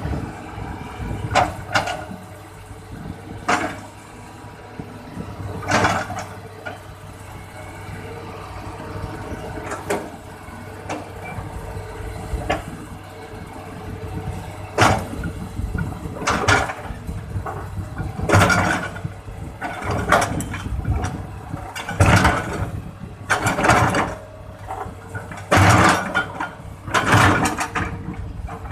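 Hitachi excavator's diesel engine running steadily as the machine is worked. Short loud noises break in over the hum, more often in the second half, about every one to two seconds.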